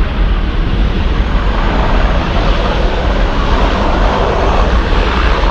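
Boeing 737-800's CFM56 jet engines at high takeoff thrust, heard from inside the cabin as a loud, steady rushing roar over a deep low rumble.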